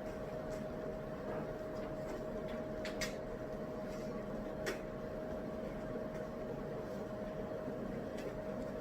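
Steady white-noise background with a constant hum, and a few light clicks or taps from the desk, the two clearest about three seconds and nearly five seconds in.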